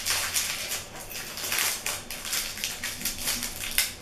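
Crinkly plastic lollipop wrapper being picked at and pulled open by hand, a run of irregular crackles.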